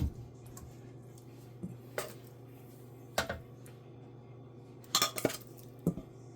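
Kitchenware clinking and knocking: about half a dozen short, sharp clinks of utensils against dishes or pans, with a quick cluster of them a little after five seconds in, over a steady low hum.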